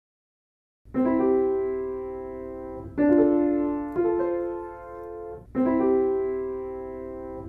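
Background piano music: after about a second of silence, four slow chords are struck one after another, each left to ring and fade.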